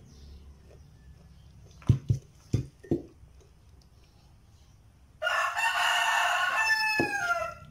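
A rooster crowing once, a long crow of about two and a half seconds starting about five seconds in, falling in pitch at the end. Before it, a few sharp knocks of dishes being handled on the table.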